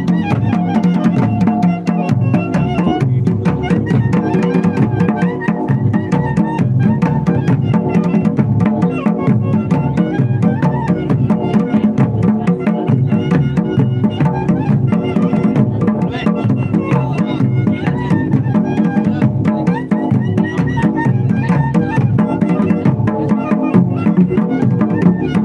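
Traditional Himachali devta procession music: a brass-shelled dhol beaten with a stick in a fast, steady rhythm, with held melody notes that shift in pitch over the drumming.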